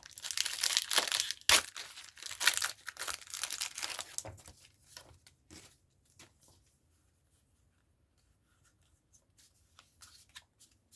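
Foil booster pack of Pokémon trading cards being torn open and crinkled, with one sharp rip about a second and a half in. The rustling thins out after about four seconds into scattered crackles, then only a few faint ticks.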